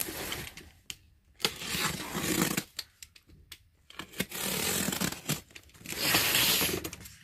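Box cutter slitting the packing tape on a cardboard box: about four drawn-out cutting strokes along the taped seams, with small clicks and scrapes of the blade between them.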